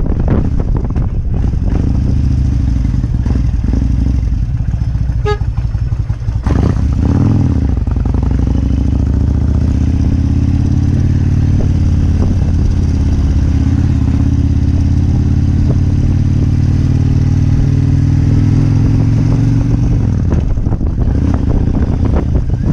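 Kawasaki Vulcan 1600 Classic's V-twin engine running steadily while riding, its pitch dipping and changing about a quarter of the way in before settling again.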